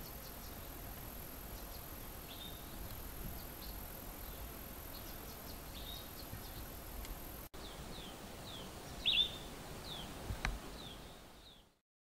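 Birds calling with short high chirps, then a quick series of short falling notes about half a second apart, over a steady high insect hum that stops about halfway through. The sound fades out just before the end.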